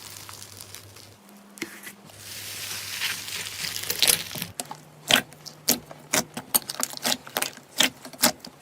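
Slime being worked by hand: a crackling hiss, then from about halfway a quick run of sharp pops and clicks, two to three a second.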